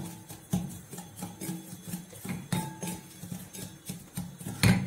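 Spatula scraping and knocking against a stainless steel kadai as dry semolina is stirred and roasted: irregular scrapes and taps, a louder knock near the end, with faint music underneath.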